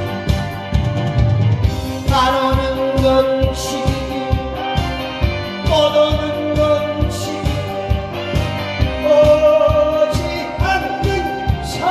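A man singing a Korean trot song into a microphone, holding long notes, over amplified accompaniment with a steady beat.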